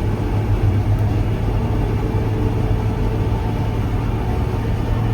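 Gleaner combine running steadily while harvesting wheat: a steady engine and machinery drone with a strong low hum, heard from the operator's seat.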